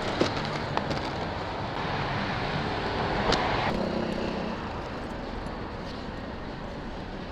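Street traffic heard while riding: a vehicle passes, its noise swelling and fading about two to four seconds in, over a steady road hum.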